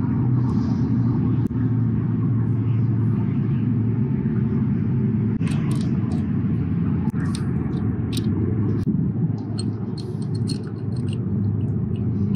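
Steady low rumble, with scattered light clicks and taps as a spin-on oil filter is worked loose by hand from a motorcycle engine.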